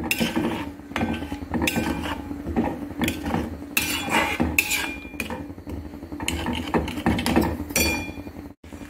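Steel spatula scraping and clinking against a steel kadhai while stirring a wet, liquid orange pulp and sugar mixture. The strokes are irregular, about one a second, and a few leave a brief metallic ring.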